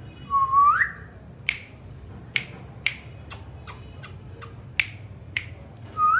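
Indian ringneck parakeet giving a rising whistle, then a string of short, sharp clicks, and another rising whistle near the end.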